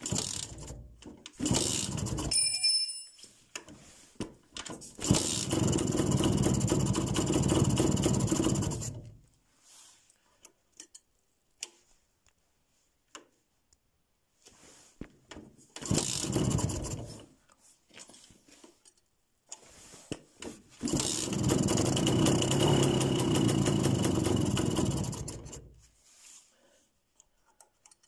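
Two-stroke single-cylinder Jawa ČZ motorcycle engine with a transparent cylinder head, starting up twice. Each time a short burst of sound comes first, then the engine runs for about four seconds and stops.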